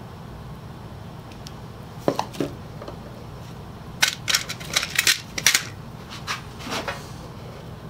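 Small metal screws clinking as a hand picks through an open box of them: a couple of clicks about two seconds in, then a quick run of clinks for a second or so, and two more near the end.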